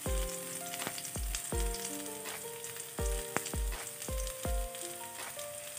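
Chopped garlic sizzling in a little hot oil in a frying pan, a steady high hiss. Background music with held melodic notes and a regular bass beat plays over it.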